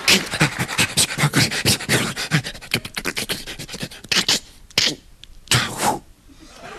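Man making vocal sound effects into a handheld microphone: a quick run of sharp mouth clicks, about five a second and slowing, then three or four short hisses near the end.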